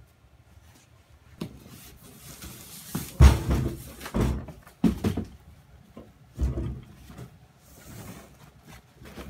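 Dull thumps and rustling as a roll of upholstery foam is handled and set down on a wooden worktable, several thumps a second or so apart, the loudest about three seconds in. Near the end, its white wrapping sheet rustles as it is pulled off.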